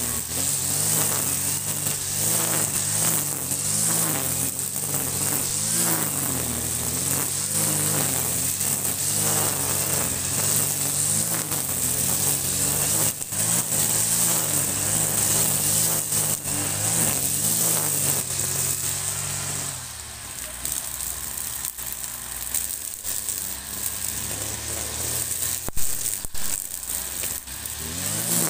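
Kawasaki TJ45 two-stroke brush cutter running at high revs, its pitch wavering up and down as the cutting head is swung through thick grass. About two-thirds of the way through it drops back to a lower, quieter speed.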